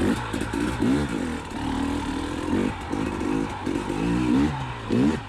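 KTM 300 XC TPI two-stroke dirt bike engine revving up and down in repeated short throttle bursts.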